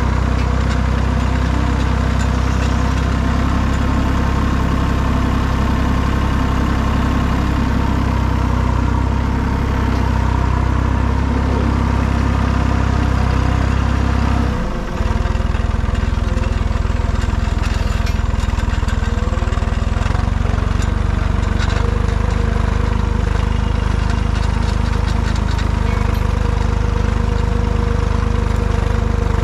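Farm tractor engine running steadily as the tractor drives along, with a brief break in the sound about halfway through.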